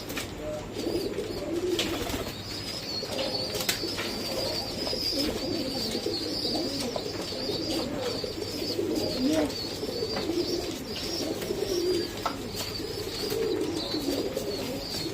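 Pigeons during a squab feeding: a thin, high-pitched squeaking runs on almost without a break, over low, wavering pigeon sounds, with scattered short clicks.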